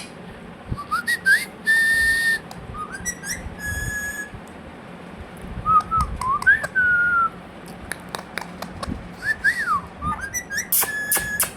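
Indian ringneck parrot whistling: a string of short clear whistled notes, some rising and falling, a few held steady, broken by a couple of brief harsh high calls.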